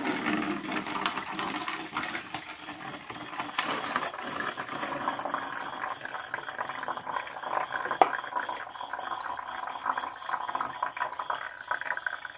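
Thick fermented fruit juice poured from a plastic tub through a mesh net into a plastic bucket, splashing and trickling continuously as it is strained off the fruit pulp. A single sharp knock comes about 8 seconds in.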